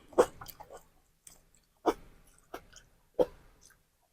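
Close-miked chewing and mouth sounds of someone eating: wet smacking with a few sharper, crisp clicks, the loudest near the start, about two seconds in and about three seconds in.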